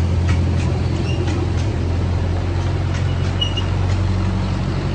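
Miniature amusement-park train running along its track, heard from a passenger car: a steady low drone from the train, with a few faint clicks and two short high squeaks.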